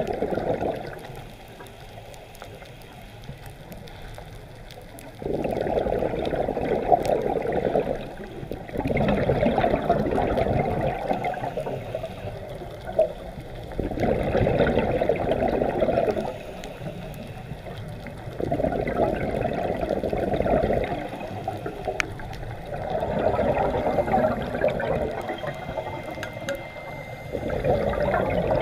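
Scuba regulator exhaust bubbles recorded underwater: a diver's exhalations come out as gurgling rushes of bubbles, about six in all, each two to three seconds long and coming every four to five seconds, with quieter breathing gaps between them.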